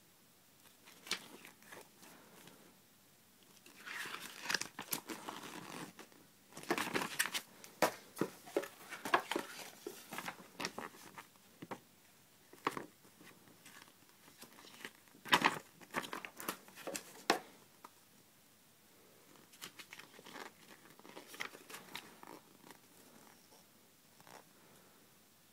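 Packaging being handled: plastic wrapping crinkling and rustling, with scattered sharp clicks and knocks, in irregular spells separated by quiet pauses.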